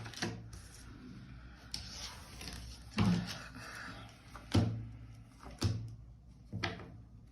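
Five soft knocks about a second apart, the sound of tarot cards being set down on a table.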